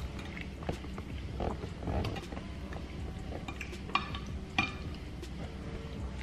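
Close-miked eating sounds: chewing and mouth noises, with a plastic fork clicking and scraping against a glass dish, the two sharpest clicks about four and four and a half seconds in. A steady low hum runs underneath.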